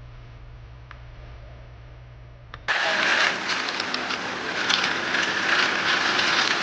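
Faint low hum, then an abrupt cut about two and a half seconds in to a loud engine-driven machine running steadily with scattered knocks, likely equipment working the concrete pour.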